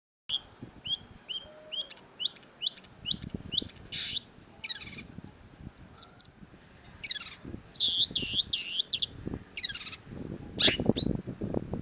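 Long-tailed shrike singing: a quick run of short chirps, about three a second, then a varied string of harsher notes and downward-sweeping calls, turning into a scratchy chatter near the end.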